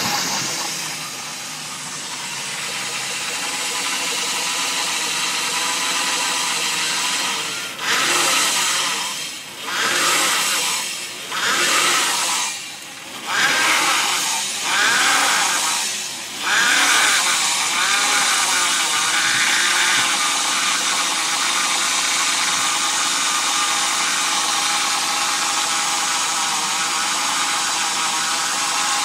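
BMW E34 car engine running just after being started, blipped five times between about 8 and 17 seconds in, each rise and fall in revs about two seconds apart, then back to a steady idle.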